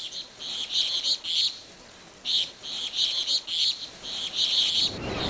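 High-pitched outdoor chirping in repeated short bursts, about three or four a second, in runs broken by brief pauses. Near the end a low rushing noise sets in beneath it.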